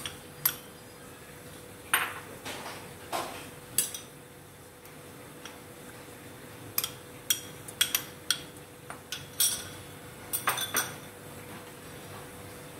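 A steel spoon scraping and tapping gram flour out of a bowl into a non-stick kadhai, then a spatula knocking and scraping against the pan as the flour is stirred into ghee. Irregular clinks and knocks, bunched in quick runs past the middle and again toward the end, over a faint steady hum.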